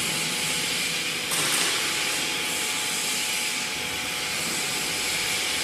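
Hydraulic power unit of a four-column tea-cake press running as the press cycles: a steady hiss of pressurised oil over a faint steady hum. The hiss brightens briefly about a second and a half in.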